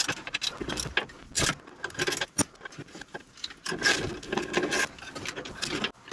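Hand tools and loosened parts clinking and knocking against metal brackets and plastic trim under a Land Rover Discovery 2's dashboard: irregular clicks and knocks, one sharp click about two and a half seconds in, and a stretch of rubbing and scraping around four to five seconds in.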